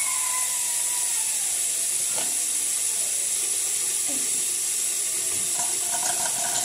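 Water running steadily from a tap in a thin stream into a basin, a constant hiss.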